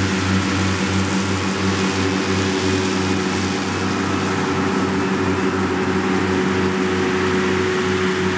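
John Deere 7290R tractor's engine running steadily under load while its Krone front and rear disc mowers cut grass, a constant drone with a strong whirring hiss from the spinning mower discs.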